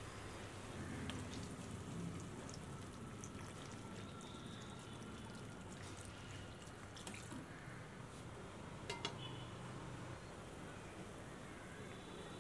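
Food cooking in a pan: a steady hiss with a few scattered clicks and a sharper double click about nine seconds in.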